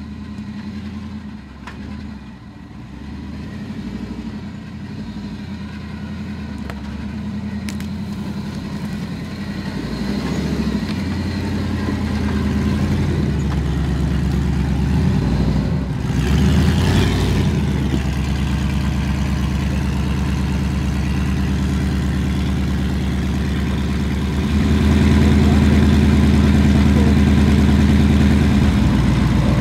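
Toyota 80 Series Land Cruiser winch truck's engine running under load, its speed rising and falling in steps and growing louder, with a further jump in level about 25 seconds in. A brief rush of noise comes about 17 seconds in.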